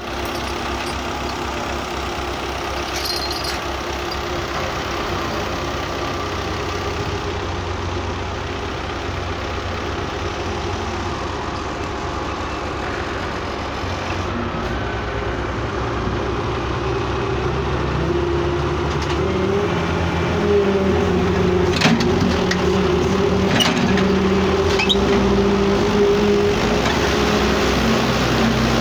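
Diesel farm tractor engines running steadily. From about two-thirds of the way through, one grows louder and higher, working under load as a tractor's exhaust puffs black smoke. A few short knocks come near the end.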